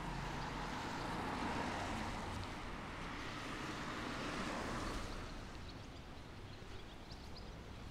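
A road vehicle passing on the street, its tyre and engine noise dying away about five seconds in.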